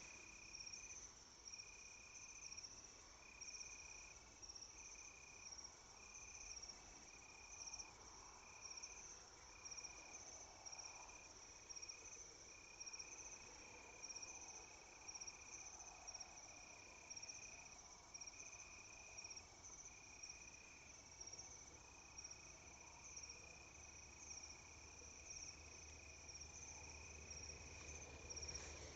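Faint crickets chirping steadily at night: a lower trill repeating in dashes about once a second, with a higher, faster-pulsing trill above it.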